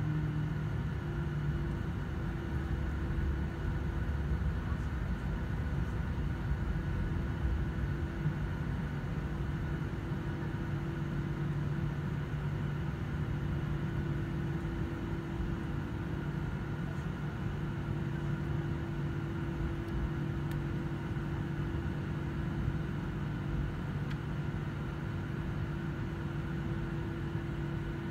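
Cabin noise of a jet airliner taxiing on the ground: a steady low rumble with a constant engine hum at idle thrust and faint air-system hiss.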